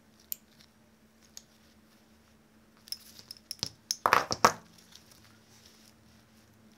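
Metal clicks and clinks from a bicycle caliper brake being assembled, its arms handled on the centre bolt and the pivot nut worked with a wrench. There is a single sharp click near the start, then a quick run of sharper clacks in the middle, loudest about four seconds in.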